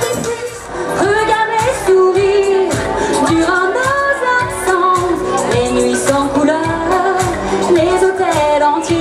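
A pop song sung live into a microphone over amplified music with a steady beat.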